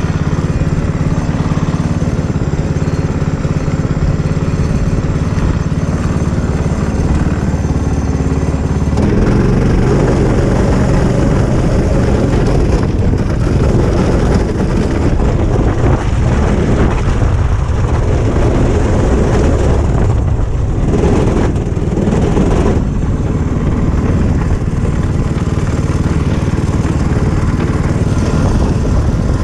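Small go-kart engine running as the kart is driven; about nine seconds in the sound gets louder and rougher, with a noisy rumble added to the engine note.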